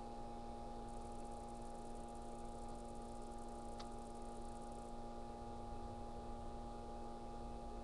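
Steady hum made of several constant tones over faint background noise, with a single faint click about four seconds in.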